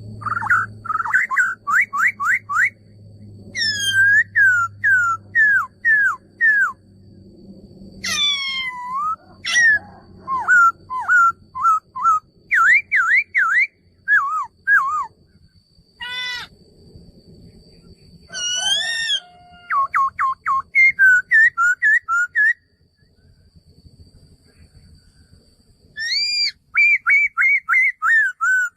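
Male laughingthrush singing: loud phrases of quick whistled notes, each sweeping up or down, repeated several times a second, with short pauses between phrases.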